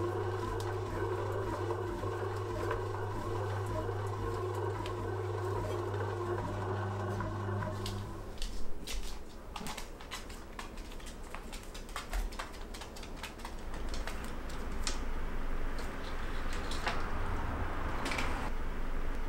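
Bread machine kneading dough, a steady motor hum that stops about eight seconds in. Scattered light clicks and taps follow, with a short rustle near the end.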